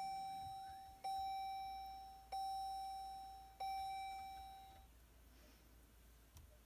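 A 2018 Chrysler Pacifica's warning chime sounds just after the car is switched on. Each chime is a single ding that fades away, repeating about every one and a quarter seconds, and the chimes stop about five seconds in.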